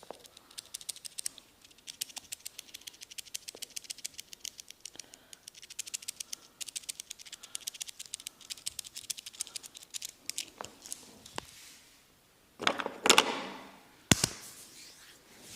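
Hair cracking: dense, rapid dry crackling clicks, many a second, as strands of hair are rubbed and tugged between the barber's fingers. The clicks thin out after about ten seconds, followed by a louder rustle and one sharp slap near the end.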